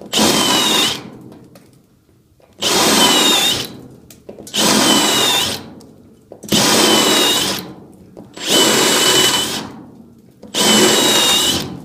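Power drill drilling out rivets in short bursts, six in all, about two seconds apart, each with a high whine that sags and recovers as the bit bites into a rivet head.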